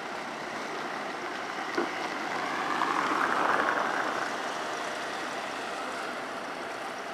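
Motor traffic on an open square, with a truck engine running steadily. A vehicle sound swells about three seconds in and fades again, after a brief knock just before.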